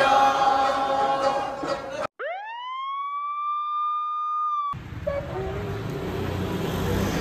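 Two men singing loudly together, cut off about two seconds in by an edited-in sound effect: a clean whistle-like tone that glides quickly up in pitch, holds steady for about two seconds and stops abruptly. After it, street background noise.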